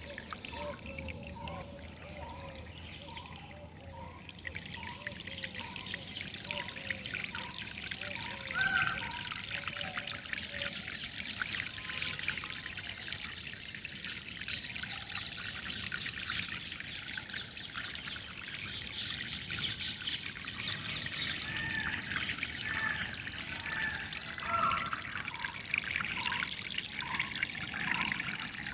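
Water trickling and flowing steadily. Over it a bird repeats a short call note over and over, a bit more than once a second; the calls stop for a stretch in the middle and resume near the end, with a few higher rising calls in between.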